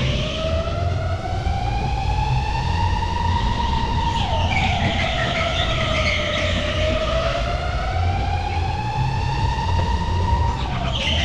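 Electric go-kart motor whining, its pitch climbing as the kart accelerates and falling as it slows, twice over, with a sudden drop about four seconds in and again near the end, over a steady low rumble.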